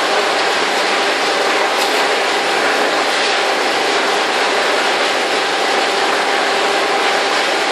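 Belt conveyor running: a loud, steady mechanical noise from the return belt travelling over its idler rollers, with a faint steady hum underneath.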